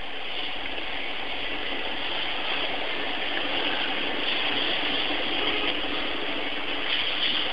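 A steady rushing noise with no distinct events, thin and dull in the top end, growing slightly louder partway through.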